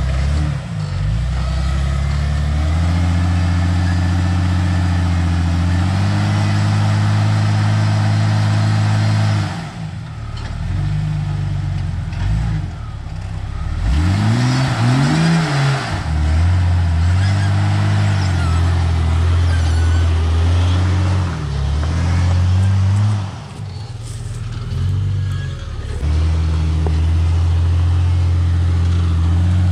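Rock crawler's engine revving up and down as it climbs over rocks, the pitch rising and falling with the throttle. About fourteen seconds in it revs sharply up, then drops off.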